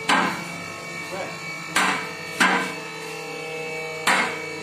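Two-post car lift rising under load: its electric power-unit motor hums steadily while the automatic safety locks clack four times as they pass over the lock notches in the posts.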